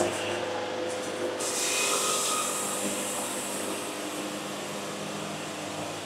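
Wood-Mizer band sawmill running steadily, its band blade sawing through a cant. A brighter hiss from the cut comes in about a second and a half in.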